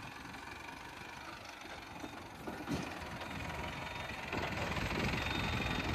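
Small tractor's diesel engine running under load as it tows a trolley up a steep dirt ramp, growing louder a little after four seconds in, with a single short knock just before the middle.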